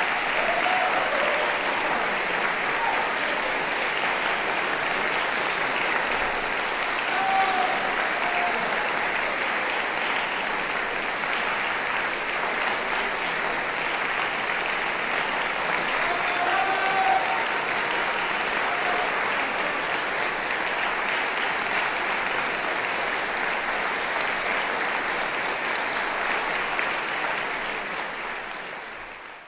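Audience in a recital hall applauding steadily after a piano performance, fading out at the very end.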